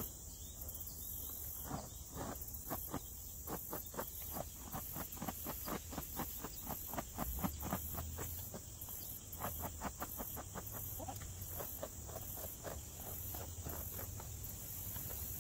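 A tail brush with stiff bristles raking through a horse's long, dry tail with no detangler in it: a run of quick brushing strokes, several a second. Crickets or other insects chirp steadily behind it.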